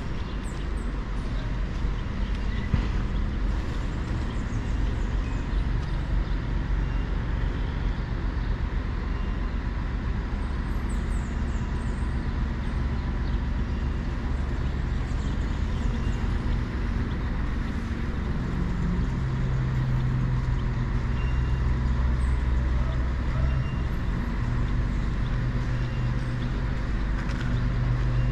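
Steady street traffic rumble, with a motor vehicle's engine hum growing stronger near the end.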